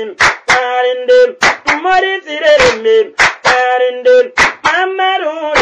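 Singing voice carrying a song, accompanied by sharp hand claps about twice a second.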